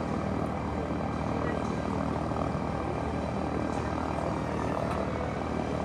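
Airbus A400M Atlas military airlifter flying overhead, its four TP400 turboprop engines and propellers giving a steady drone with a low, even hum.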